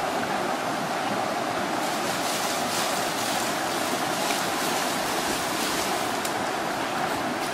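Steady rushing of a shallow stream running over rocks.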